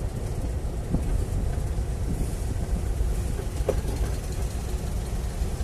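Volkswagen Beetle's rear-mounted air-cooled flat-four engine running, heard from inside the cabin as a steady low drone.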